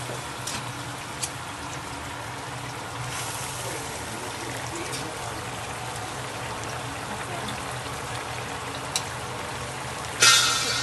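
Braising sauce simmering and bubbling around a whole chicken in a stainless steel pan, a steady watery hiss over a low hum. A loud ringing clatter comes near the end.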